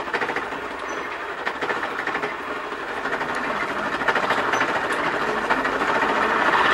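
Hand-worked spinning wheel, a bicycle-wheel drive with a wooden winding reel, turning with a fast, even clatter as wool yarn is spun and wound. It grows louder toward the end.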